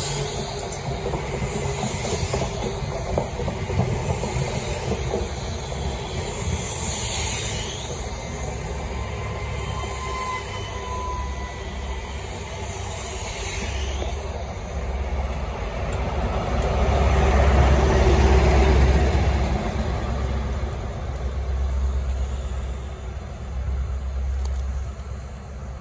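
A CrossCountry High Speed Train rolling slowly past close by, its wheels clicking over the rail joints with a few brief high squeals. A deep diesel rumble from a Class 43 power car builds to its loudest about two-thirds of the way through.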